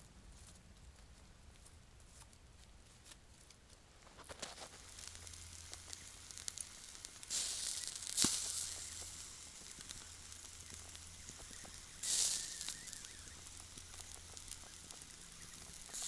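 Chicken leg quarters sizzling in a wire grill basket over wood embers, with crackling from the coals. The sound starts faint and grows, with two louder spells of hissing, one about halfway through and one about three-quarters through.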